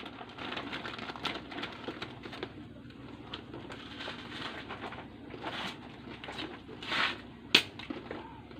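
Irregular crackling, tapping ticks over a faint steady background, with one sharp, loud click about seven and a half seconds in.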